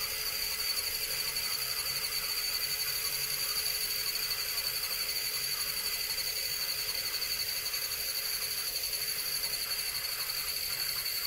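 Axial SCX24 C10 RC crawler's small electric motor and gears giving a steady high-pitched whine, wavering slightly, as the truck crawls slowly up a steep wooden ramp at low throttle.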